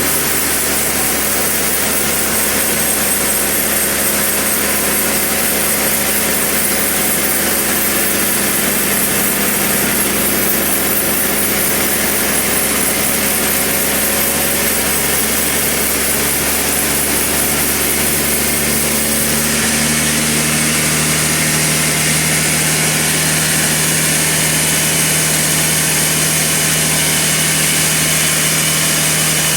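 Sawmill machinery running steadily, a continuous engine drone with saw noise over it. Its tone shifts a little about two-thirds of the way through.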